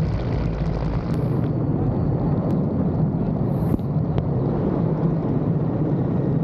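Helicopter running, a loud steady low rumble.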